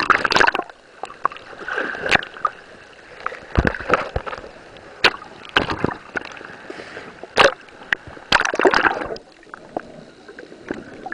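Seawater splashing and sloshing in irregular bursts as the camera breaks the surface and dips back under.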